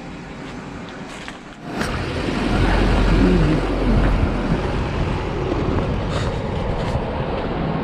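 Steady rumble of a small vehicle travelling over a dirt track, with wind on the microphone. It starts suddenly about two seconds in, after a quieter stretch.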